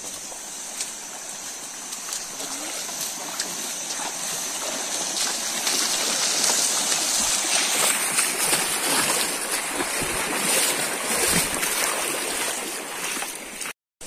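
A fast, swollen, muddy stream rushing, growing louder through the first half as the water is approached and waded into, with feet splashing through the current. The sound cuts off suddenly near the end.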